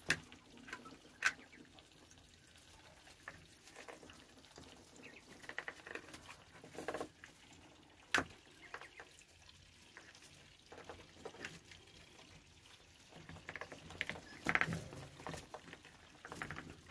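Muscovy ducklings feeding from a bowl of chopped wet greens: irregular wet nibbling and dabbling with their bills, and scattered sharp clicks of bills striking the bowl. The clicks are sharpest about a second in and about eight seconds in, and the feeding gets busier near the end.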